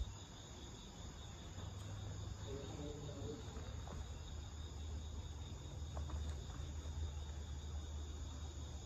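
Crickets trilling steadily in a high continuous chorus over a low, steady rumble.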